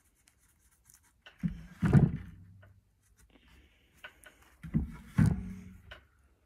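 Wooden hockey stick knocking on a wooden workbench as it is shifted and turned over: two pairs of dull thumps, about a second and a half in and again near five seconds in.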